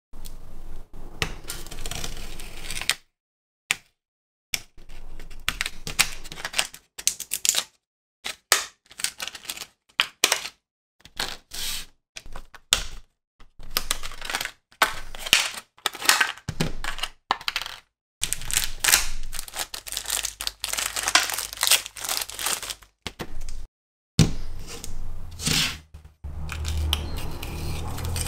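Hobby tools and small plastic items handled and set down on a workbench: a run of clicks, taps and light scraping, stopping and starting abruptly many times, with a low hum in the last few seconds.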